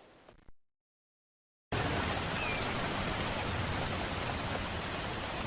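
Steady rain falling, an even hiss of raindrops that starts abruptly a couple of seconds in after a moment of silence.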